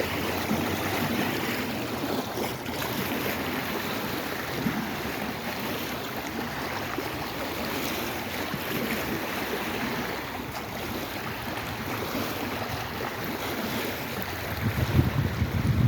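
Lake Erie waves washing steadily, with wind on the microphone. A louder low rumble comes in near the end.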